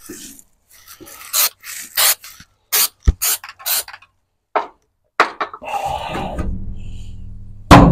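Undercoating sprayed onto the underside of a pickup bed: a run of short hissing spray bursts, then one longer spray. A sharp knock comes just before the end.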